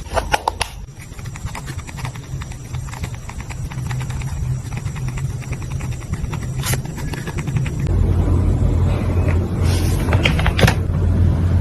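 Paper and stickers being handled on a journal page: a series of small clicks and taps, a run of fine scratchy ticks, and two short rustles about 7 and 10 seconds in, over a steady low hum.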